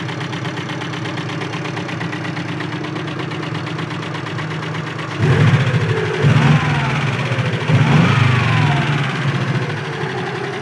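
1991 Subaru Loyale's flat-four engine idling with a fast, even ticking from a failing hydraulic lifter that bleeds down and collapses. About five seconds in the engine is revved up and back down twice, louder, then returns to idle.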